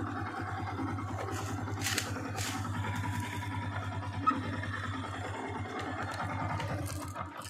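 Motorcycle engine running steadily while the bike moves over rough ground, with a few knocks and scrapes; the engine sound cuts off suddenly near the end.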